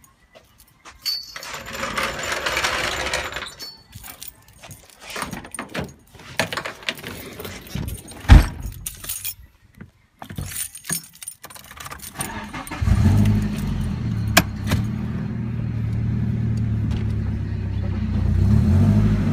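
Keys jangling and handling clatter, one sharp knock about eight seconds in, then the VW van's engine starts about thirteen seconds in and idles steadily.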